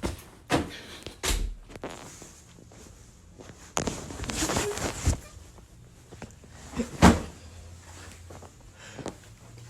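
A series of irregular knocks and thumps with a second-long scuffing noise about four seconds in; the loudest thump comes about seven seconds in.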